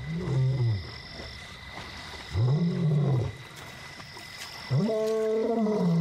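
Young male African lion roaring, three long calls that each rise and fall in pitch, the third the longest and loudest. These are contact roars, calling out to locate a separated brother.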